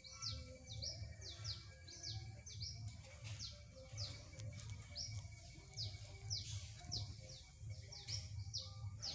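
A bird chirping over and over, quick high notes that fall in pitch, two or three a second, over a faint low hum.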